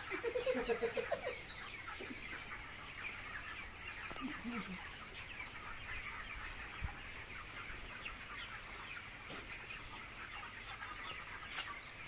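A large flock of broiler chickens in a poultry house clucking and chirping continuously, many overlapping calls.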